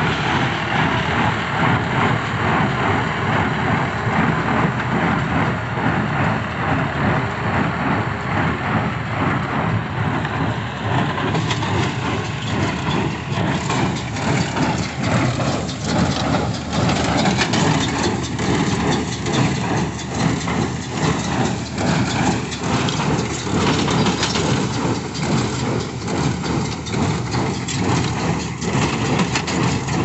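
Tractor engine running with a tractor-drawn square baler working behind it, picking up and compressing dry sugarcane leaves in a steady mechanical din of rapid knocking. The sharper, higher clatter of the baler comes forward partway through.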